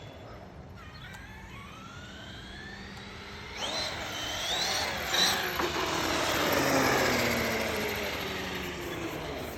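Traxxas X-Maxx RC monster truck's electric motor whining as the truck drives, its pitch rising and falling with speed; about three and a half seconds in it gets much louder, with tyre noise, as the truck accelerates hard, and a sharp knock comes about five seconds in.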